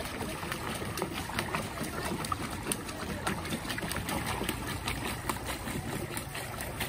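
Water splashing and lapping against a pedal boat: a steady wash with many irregular small clicks and knocks.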